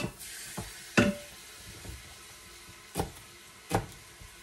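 Mince browning with a faint steady sizzle in an Instant Pot's sauté pot. A utensil knocks sharply against the pot four times, one knock ringing briefly.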